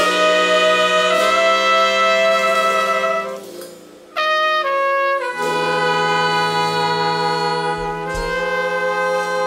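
Jazz horn section of trumpet, alto and tenor saxophone playing long held chords together, moving to a new chord every second or two. About three and a half seconds in the sound drops briefly, two short chords follow, and then the held chords resume.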